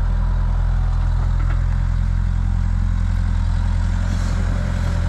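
Heavy diesel engine of a tractor or backhoe loader running steadily at low revs.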